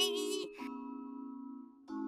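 Gentle children's background music of held, bell-like chords; a high-pitched voice trails off about half a second in.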